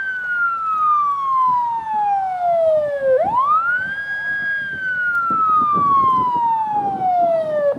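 A siren wailing through two cycles, each rising quickly to a high pitch, holding briefly and then falling slowly; it is loud and cuts off abruptly at the end.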